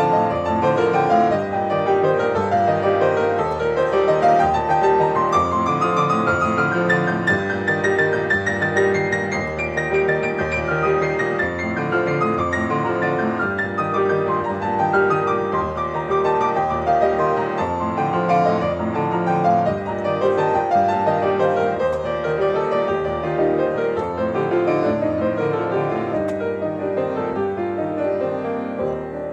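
Background piano music, gentle arpeggiated runs that climb and fall.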